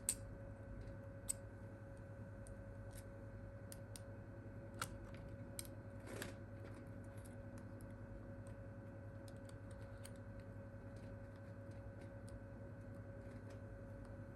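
Light, scattered clicks and taps of small phone parts and tools being handled while a smartphone battery is fitted, over a steady low electrical hum.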